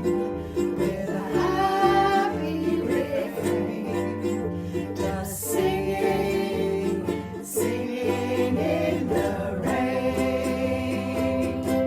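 Acoustic pop song: strummed ukulele over a bass line, with sung vocals coming in at points.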